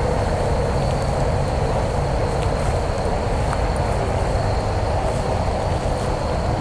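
Steady rushing noise with a low, uneven rumble, the sound of a body-worn action camera's microphone being carried along as the wearer walks across grass; a faint steady high whine sits underneath.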